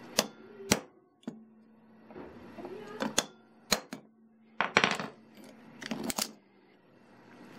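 Steel wire rope and its crimped ferrule clicking and clinking against the jaws of locking grip pliers as they are handled. It is a string of sharp metallic ticks spread over several seconds, a few coming in quick clusters, with a clatter near the end as the pliers are moved.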